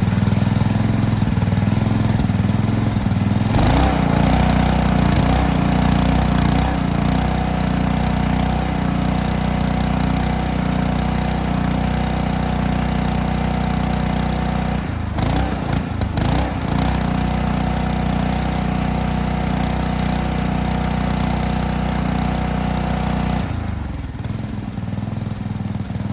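Honda GCV190 single-cylinder engine running a Ryobi 3300 PSI pressure washer pump, with a steady hum. About four seconds in it takes on load and a hiss joins it. It wavers briefly mid-way and keeps running. The unloader valve has been backed off to lower the pump pressure, so the engine no longer bogs down and dies under spraying load.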